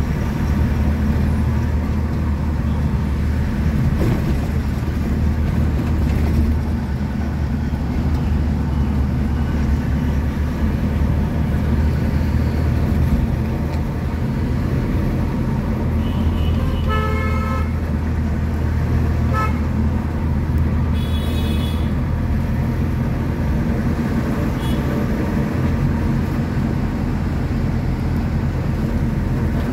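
Steady engine and road noise heard from a moving vehicle in traffic. A vehicle horn sounds for about a second a little past halfway, followed by two shorter, higher honks within the next few seconds.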